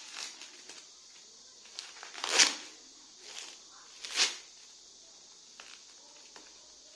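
Clear plastic film wrapped around a tree's root ball being torn and crinkled open in a few short rips, the loudest about two and a half seconds and four seconds in.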